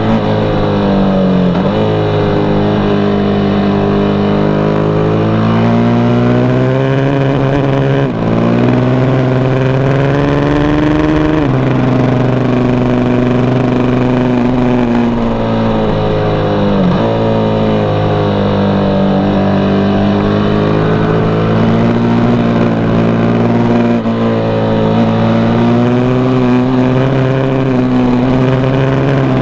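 KTM RC8 sport bike's V-twin engine heard from the rider's seat, its pitch rising and falling as it is ridden through the bends, with several sudden drops in revs.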